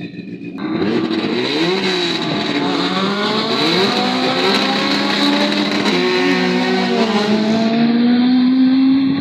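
Drag racer's engine accelerating hard down the strip. The engine sound comes in loud just under a second in, and its pitch climbs and falls back several times before a final long climb, then fades at the end.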